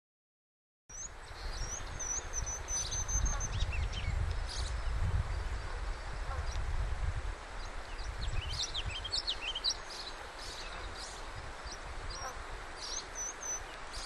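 Ruby-crowned kinglet singing, starting about a second in. A quick run of high, thin repeated notes is followed by a jumble of varied chirps, and another run of repeated notes comes near the end. A low, uneven rumble runs underneath.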